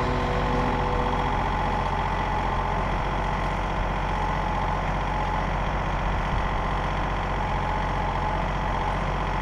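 John Deere 2032R compact tractor's three-cylinder diesel engine running steadily.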